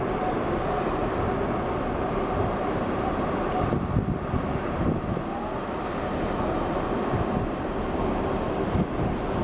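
Cruise ferry Silja Serenade passing close by: a steady low rumble of the ship's engines and propellers, with a faint steady hum above it.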